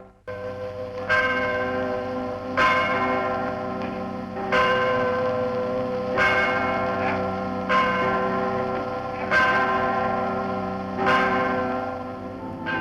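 A church bell tolling slowly, about seven strokes, one every second and a half to two seconds, each ringing on into the next. The sound cuts out for a moment at the very start.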